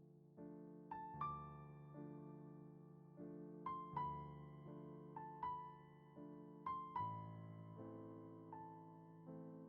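Soft, slow piano music: sustained chords with a melody of single notes struck about once a second.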